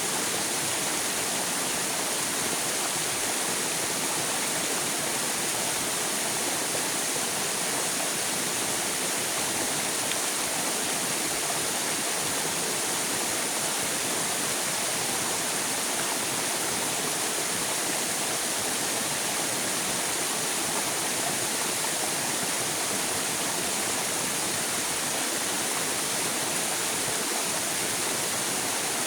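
River water flowing, a steady, even rush with no breaks or changes.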